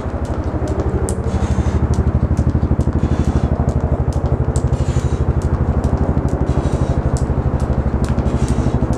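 Jump rope skipping, the rope clicking sharply against the stone patio two to three times a second, over a loud, steady, rapidly pulsing motor-like drone.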